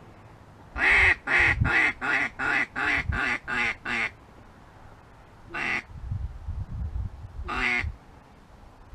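Mallard duck call blown by a hunter: a quick run of about eight quacks that trails off in loudness, then two single quacks a couple of seconds apart, calling to wary mallards that will not commit.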